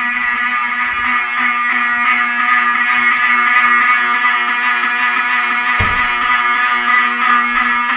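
Fire alarm sounding: a loud, steady, unbroken tone, with a single low thump about six seconds in.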